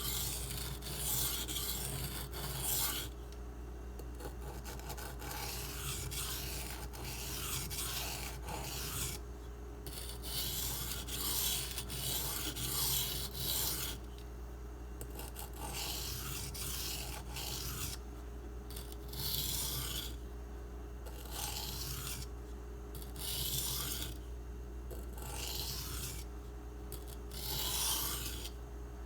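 An M390 steel knife blade being drawn across a coarse 240-grit silicon carbide sharpening stone: a series of gritty, rasping strokes, each about a second long, with short pauses between them.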